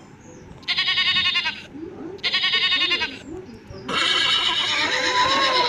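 Goat bleating twice, each call about a second long with a wavering tremble. About four seconds in, a horse's whinny begins.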